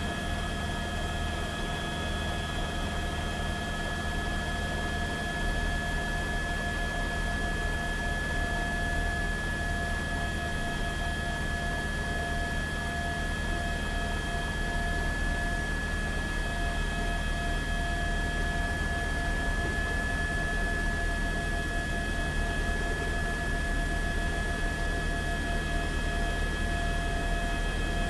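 Steady electrical hum and hiss with a constant high whine and a fainter tone that flickers on and off from about nine seconds in; no sudden sounds.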